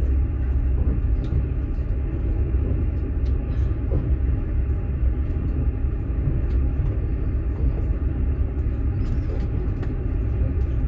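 Steady low rumble of a passenger train running, heard inside a platzkart sleeper carriage, with scattered faint clicks and rattles over it.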